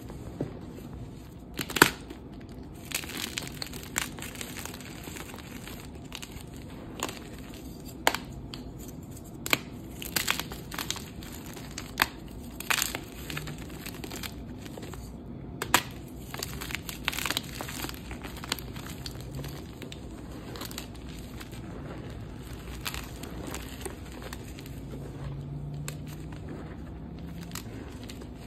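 Dyed gym chalk chunks being crushed and crumbled by hand in a pile of chalk powder: irregular sharp crunches and crackles, thinning out in the last third.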